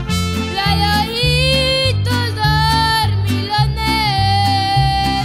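Mariachi ensemble playing a ranchera: violins and a wavering, held melody over strummed guitar and vihuela, with a guitarrón bass line stepping beneath in a steady rhythm.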